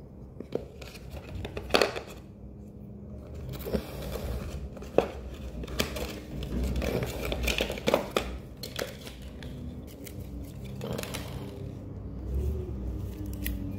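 Hands unpacking a box: stiff plastic trays and a cardboard insert being lifted out and handled, with rustling and irregular sharp plastic clicks and knocks.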